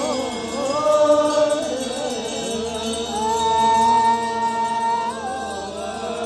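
Music: a slow, melodic chant sung in long held notes that glide from one pitch to the next.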